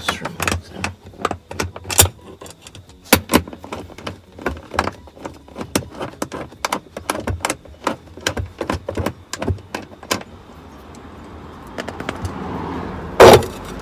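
Hand tools working the 10 mm nuts on a BMW E60's fuel pump access cover: a long run of irregular metallic clicks and clinks for about ten seconds. Near the end comes a softer rustle, then one loud knock.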